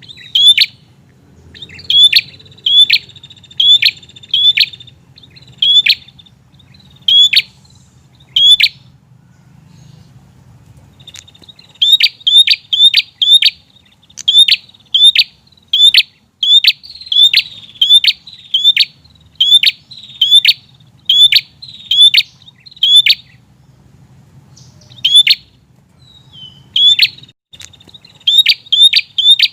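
A prinia calling insistently: loud, sharp, clicking chirps repeated about twice a second in long runs, with a couple of short pauses.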